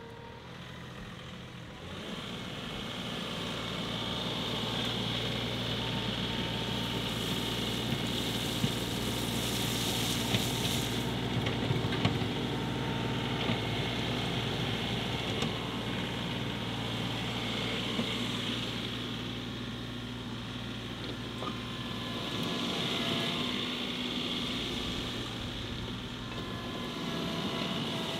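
John Deere 2038R compact tractor's three-cylinder diesel engine running as the tractor works its front loader, getting louder about two seconds in, with a steady high whine alongside and a few sharp clicks in the middle.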